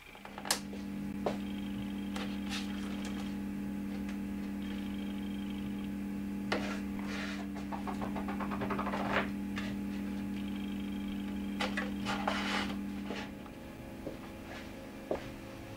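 Masking tape pulled off the roll in short crackly strips, a few times, with light clicks of handling. A steady low hum runs underneath and stops near the end.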